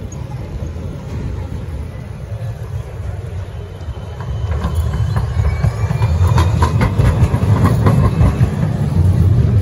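An Amsterdam GVB Siemens Combino tram passing close by. Its low rumble grows louder from about halfway through, and its wheels click and knock over the rails as it goes by.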